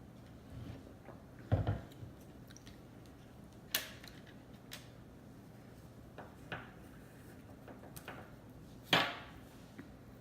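A person eating sushi: scattered wet mouth clicks and chewing sounds, with a low thump about one and a half seconds in and a sharper, louder click near the end.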